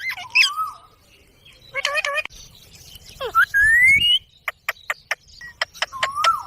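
Indian ringneck parrot calling: short bent squawks and chatter, a rising whistle a little past the middle, then a quick run of sharp clicks.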